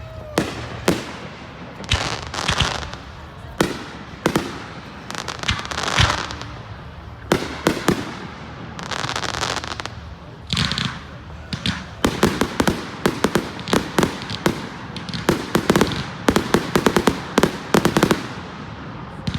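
Fireworks going off: loud sharp bangs a second or two apart, each trailed by a second or so of hissing crackle, then a rapid barrage of many bangs, several a second, through the second half.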